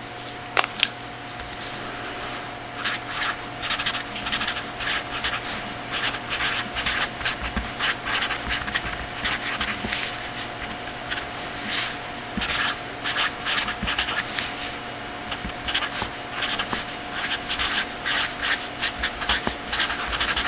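Handwriting: quick, irregular scratchy strokes of a pen or chalk on a writing surface, starting about three seconds in and continuing in clusters, over a steady electrical hum.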